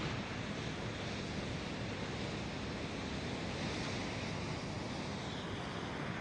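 North Sea surf washing onto the beach in a steady, unbroken rush of noise, with some wind on the microphone.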